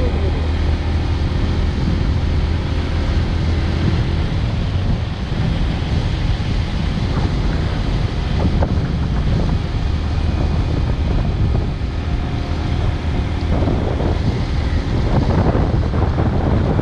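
Wind rushing over the microphone of a moving road vehicle, over a steady low engine hum.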